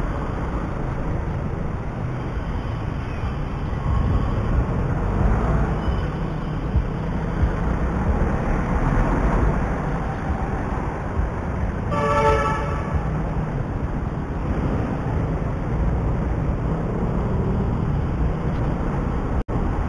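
Steady motorcycle engine and traffic noise while filtering through slow, heavy city traffic, with a vehicle horn sounding once, briefly, about twelve seconds in. The sound cuts out for an instant near the end.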